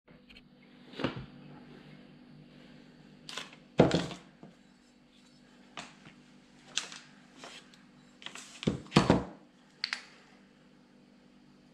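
Metal starter-motor parts being handled and set down on a paper-covered table: a string of irregular clacks and knocks, loudest about four and nine seconds in, over a faint steady hum.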